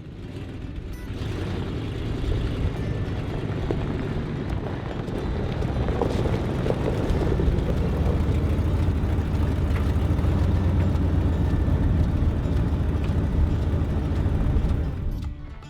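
Motor vehicle engine running, a steady low rumble that builds over the first couple of seconds.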